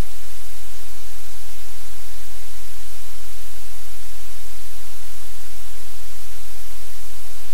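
Loud, steady static hiss spread evenly across all pitches, with a low hum underneath and no change.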